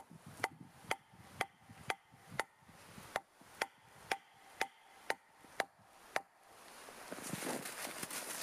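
A wooden stake being hammered into the ground: about a dozen sharp knocks, roughly two a second, each with a short ring. The knocks stop about six seconds in and give way to rustling.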